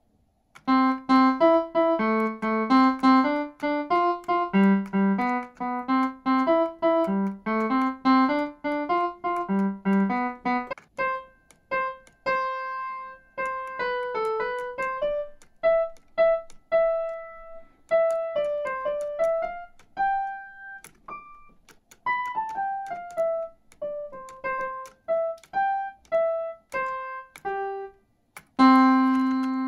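A piano playing a melody note by note, with a lower accompanying line for roughly the first ten seconds, then the tune alone higher up. Near the end it breaks off briefly before one low note is struck and held.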